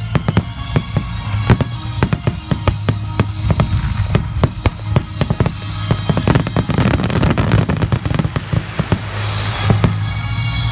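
Aerial fireworks in a finale barrage: many sharp bursts in rapid succession, with a dense crackling rush in the middle. Music plays underneath.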